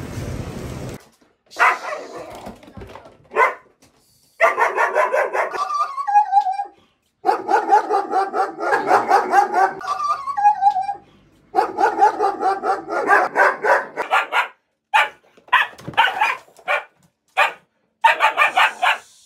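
German Shepherd barking hard in long runs of rapid barks with short gaps, then in single barks and a final quick run near the end. It is a fearful dog's defensive barking at a stranger who has come into the house.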